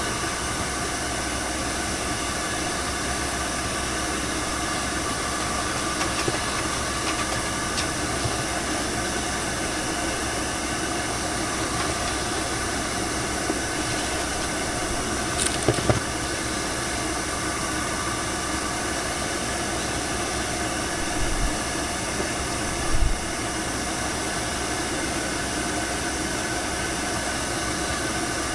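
Hair dryer blowing steadily with a hiss, drying a bathed cat, with a couple of brief knocks partway through.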